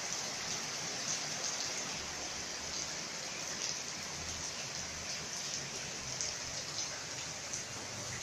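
Heavy rain falling steadily and splashing on wet pavement, with scattered sharper drops.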